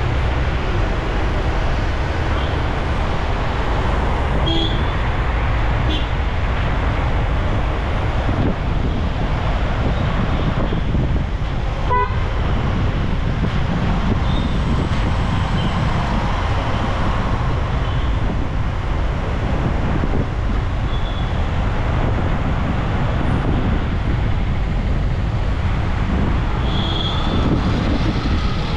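Steady road and traffic noise from driving in city traffic, with vehicle horns giving short toots several times, the clearest near the end.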